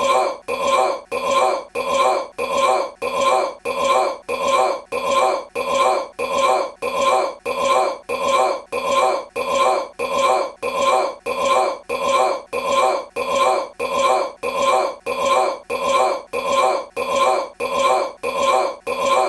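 A man's belch repeated over and over at a rapid, perfectly even pace, each one identical, as a single belch sound played in a loop.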